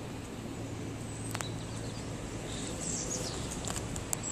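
Outdoor ambience: a steady low background noise with a few faint high chirps around the middle, and two sharp clicks, one about a second and a half in and one near the end.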